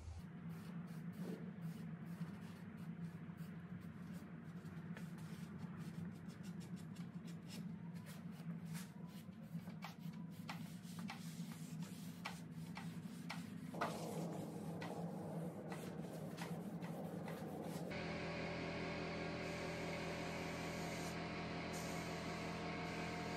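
A rag wiping wood stain onto a pine base: scratchy rubbing and quick clicks over a low steady hum. Near the end it cuts to the steady hiss and machine hum of a gravity-feed spray gun on an air hose, spraying water-based polyurethane.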